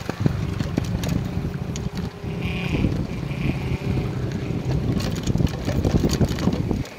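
Wind buffeting the microphone of a camera mounted on a moving bicycle, a loud low rumble, mixed with clicks and rattles from the bike on a rough road surface. The rumble drops off suddenly just before the end.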